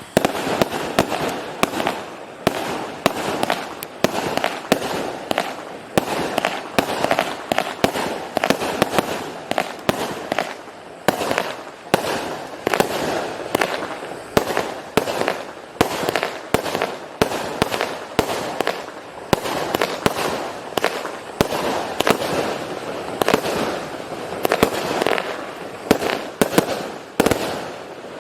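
Consumer aerial fireworks going off in a steady string of sharp reports, roughly one or two a second, with crackling between them.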